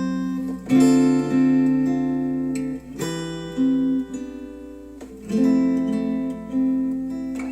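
Acoustic guitar music: strummed chords struck about four times, each ringing out and fading before the next, played back through Wharfedale Denton 80th bookshelf speakers.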